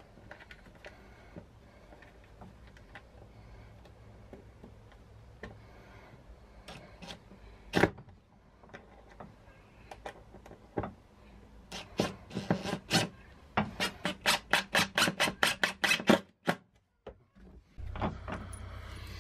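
Hand work in a wooden box: scattered small clicks and knocks, one sharp click, then a quickening run of sharp clicks for about four seconds. Near the end a cordless impact driver starts running steadily as it drives a screw.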